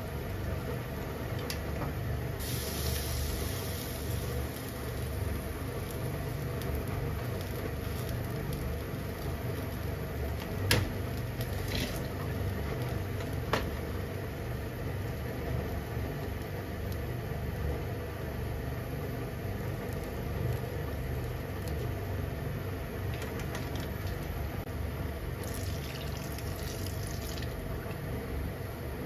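Steady low hum throughout, like a kitchen fan or burner, with two sharp clicks near the middle and two brief hissing rushes of liquid, one near the start and one near the end.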